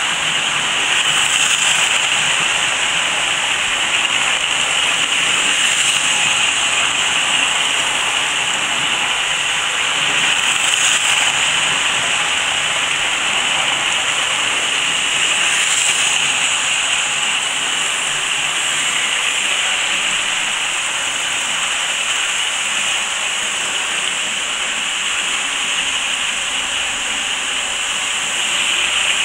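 Hornby model trains running on the layout: a steady high whirr and rattle of small electric motors and wheels on the track, swelling a little about every five seconds as a train comes round past the microphone.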